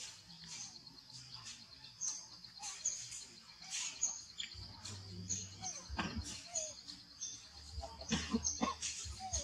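Outdoor ambience of small birds chirping repeatedly in short high notes over a steady high insect drone, with a few soft low sounds about six and eight seconds in.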